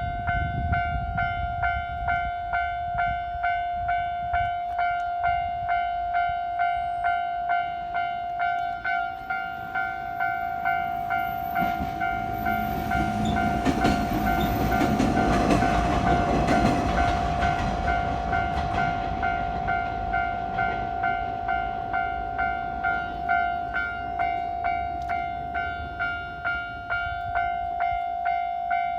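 Japanese railway level-crossing warning bell ringing in an even two-tone beat, about one and a half strokes a second, throughout. A train passes over the crossing, its noise and wheel clacks swelling to a peak about halfway through and fading out a few seconds later.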